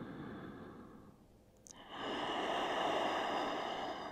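A person breathing deeply: one long breath fading out about a second in, then a second, louder and longer breath starting about two seconds in.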